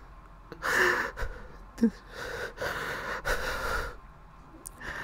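Heavy, shaky breathing of a person fighting back tears: two long breaths, the second one longer, with a short catch in the voice between them.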